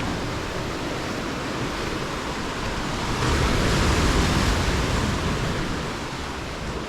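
Ocean surf on a rocky shore, a steady wash that swells into a louder wave about three seconds in and then eases off.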